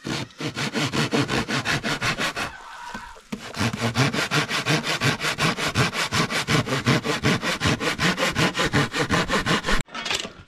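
Hand saw cutting through an old wooden plank in quick, even back-and-forth strokes, pausing briefly about two and a half seconds in, then sawing on until it stops abruptly near the end.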